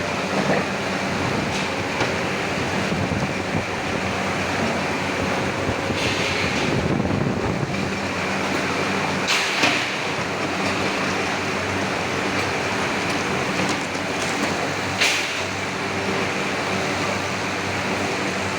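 Forging-shop machinery running with a steady hum, broken by a few short hisses.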